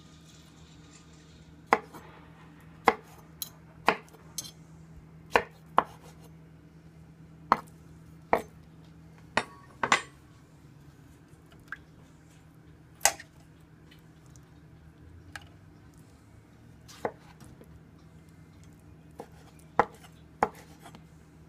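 Kitchen knife cutting boiled red-cap boletus mushrooms on a wooden cutting board: sharp, irregular knocks of the blade striking the board, about sixteen in all, over a faint steady hum.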